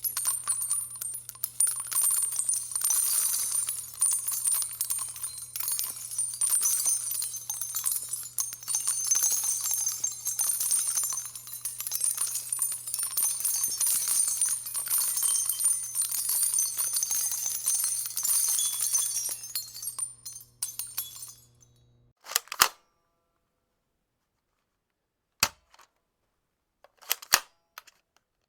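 Many spent gun shell casings dropping and clinking together in a dense, continuous metallic shower that thins out and stops about 22 seconds in. A few sharp clicks and pops from an air gun being cocked and fired follow.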